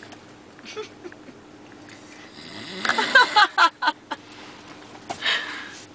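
A sleeping person snoring, with a loud, choppy run of sounds about three seconds in and a breathy snore about five seconds in.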